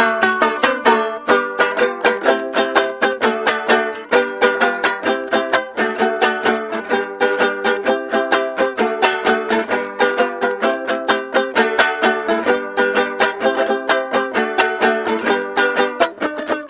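Panamanian mejorana, a small five-string guitar, played solo: a Valdivieso in the Peralta Abajo tuning, with quick, even strums several times a second.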